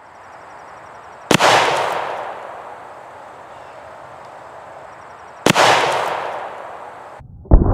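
Two loud big bore air rifle shots about four seconds apart, each a sharp crack with a long fading echo. Near the end comes a quick pair of duller bangs.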